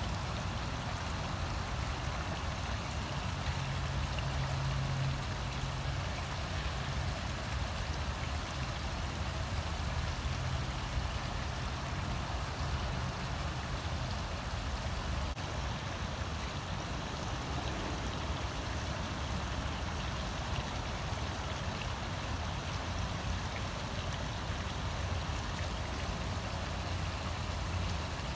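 Water spilling in thin sheets over a two-tier stone garden waterfall and splashing into a pond, a steady even splashing that keeps on without a break.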